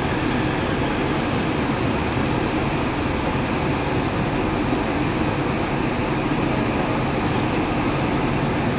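Steady rumble and hum of a Yurikamome 7300-series rubber-tyred automated train, heard from inside the car.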